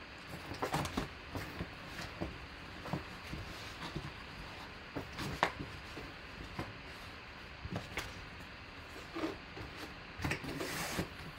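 Hands handling an autographed jersey in a cardboard shipping box, with its paper backing and a paper certificate: scattered soft rustles, scrapes and light taps, with a louder rustle near the end.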